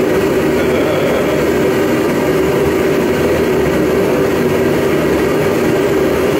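Forge running with a loud, steady roar while it heats a thick steel plate.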